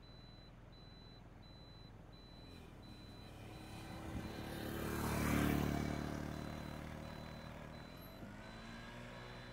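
A motor vehicle passes close by: its engine and tyre noise swell to the loudest point about five and a half seconds in, then fade away. Near the end a motorcycle engine comes in, rising in pitch as it approaches.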